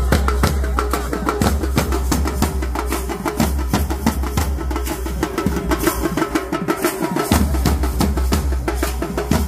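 Nasik dhol drumming: a group of large barrel drums beaten with sticks in a fast, dense rhythm. A steady low drone runs underneath and drops out briefly about seven seconds in.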